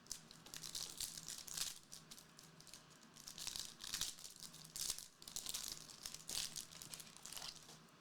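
Foil trading-card pack wrapper being torn open and crinkled, in irregular crackling bursts, with the cards inside being handled.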